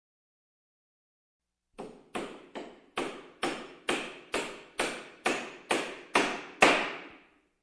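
Hammer blows: after almost two seconds of silence, a steady run of about a dozen sharp strikes at roughly two a second, each ringing briefly, the last one the loudest.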